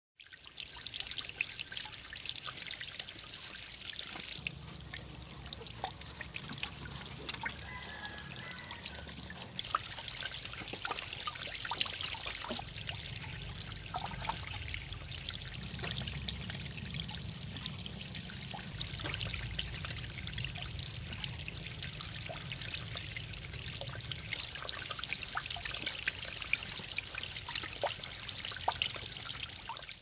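Water trickling and splashing over rocks from a small man-made waterfall.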